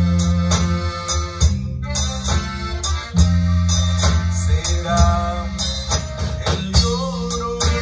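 Live band playing: drum kit keeping a steady beat under long, loud electric bass notes, with strummed acoustic and electric guitars, keyboard, and a man's voice singing.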